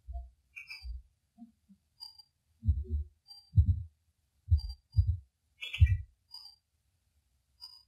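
Heavily noise-reduced field recording: a string of short, low thuds and rumbles, loudest from about two and a half to six seconds in, with faint brief high chirps between them and a short chirping burst near six seconds. The uploader presents the low sounds as suspected Sasquatch vocalizations.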